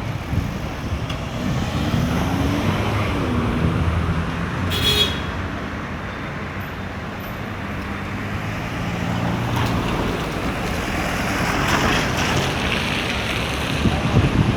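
Street traffic: a motor vehicle's engine running close by, its pitch rising and falling, with a brief high-pitched beep about five seconds in.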